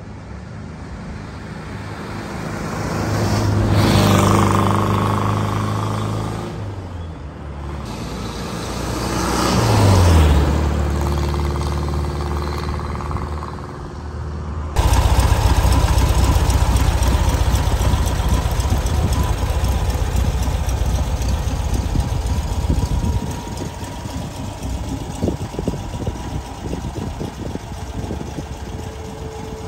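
Two vehicles drive past one after the other, each growing louder and then fading as its engine note drops in pitch. About halfway through the sound switches suddenly to a steady low engine rumble with a thin whine above it: an air-cooled Volkswagen bus flat-four engine idling.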